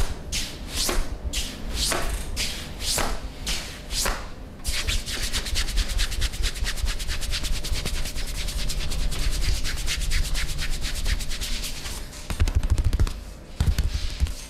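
Massage rubbing: hands stroking over skin, slowly at about two strokes a second, then about four seconds in switching to fast, brisk rubbing for several seconds, with a few dull thumps near the end.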